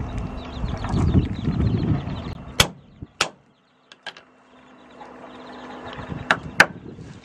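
Leaves and stems of a herb bush rustling as they are picked by hand, then a cleaver chopping garlic on a thick wooden chopping block: a handful of sharp knocks, spaced unevenly.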